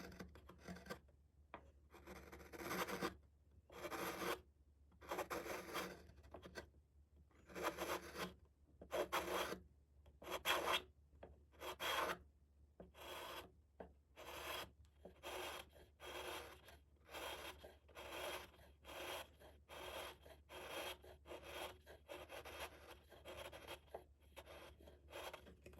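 A blade shaving wood in repeated strokes, each a short scrape. The strokes come about once a second at first and quicken to about two a second halfway through.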